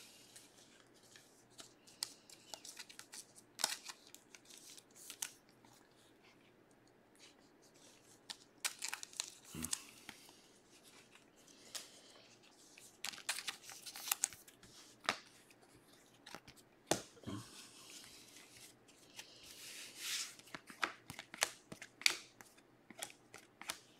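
Glossy chrome trading cards being handled and flipped through by hand: scattered clicks and short rustles of card sliding against card, with a couple of soft knocks against the table.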